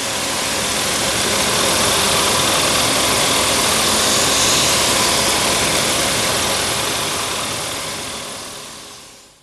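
A loud, steady rushing noise with a faint low rumble underneath, fading out over the last two seconds.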